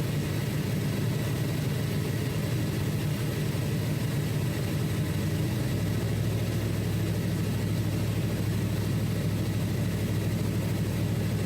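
A 1995 Chevy Tahoe's engine running steadily with the air conditioning on max and the blower on high, heard inside the closed cab. The low hum drops lower in pitch about halfway through.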